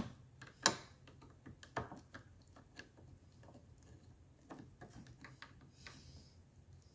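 Small metallic clicks and ticks of a flat-blade screwdriver prying at a metal cover plate on a power-seat worm-gear housing. A few sharper clicks in the first two seconds, then lighter scattered ticks.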